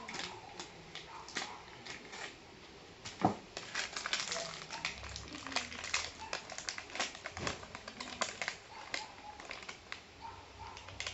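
Plastic candy wrapper crinkling and crackling in irregular bursts as it is handled and torn open.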